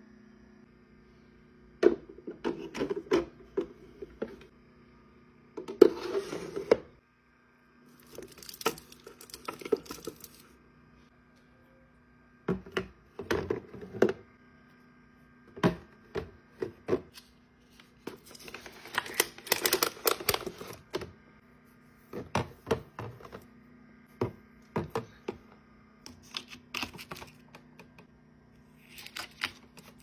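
Items being stocked into a mini fridge: bottles, containers and wrapped snacks clicking and knocking against the plastic shelves and door rack, in about a dozen separate bursts, some with crinkling plastic packaging. A faint steady low hum runs underneath.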